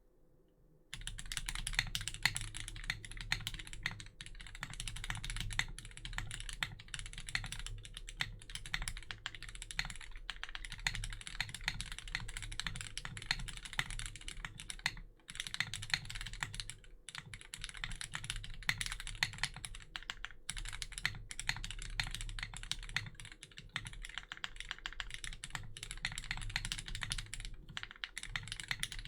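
Fast, continuous typing on a Tiger80 Lite mechanical keyboard with lubed and filmed Hyperglide Cherry MX Black linear switches and no case foam. It starts about a second in, with a brief pause about halfway through.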